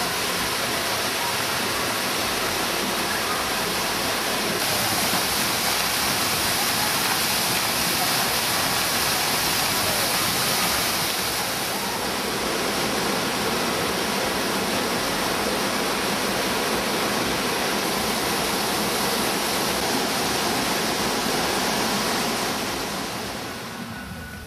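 Steady rush of a waterfall, water cascading down in several streams, fading out near the end.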